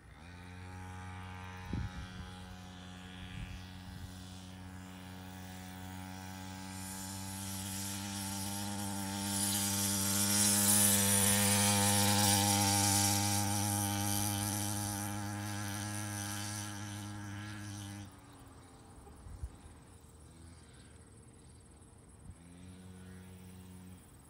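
Small 49cc two-stroke mini dirt bike engine running with a steady, high buzz, growing louder toward the middle as the bike rides closer. It stops abruptly about three-quarters of the way through, and a fainter engine buzz comes back near the end.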